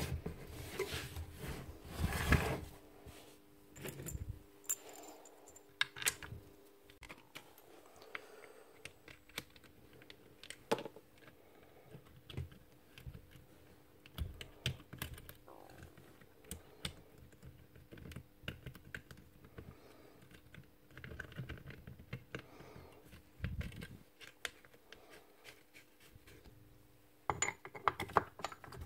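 Scattered light clicks, taps and rattles of metal parts as a Rotabroach Commando 40 magnetic drill's motor unit, slide and feed handle are handled during reassembly, with louder handling noises about two seconds in and again near the end.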